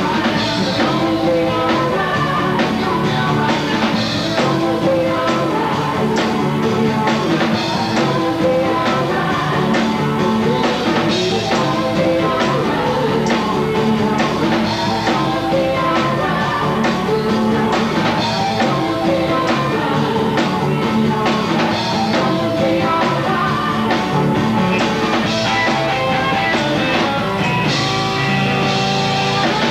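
Blues-rock band playing live: electric guitar and drums with singing, loud and continuous.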